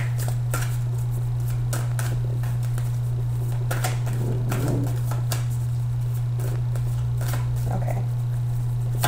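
A deck of tarot cards being shuffled overhand, giving irregular soft clicks and flicks, over a steady low electrical hum.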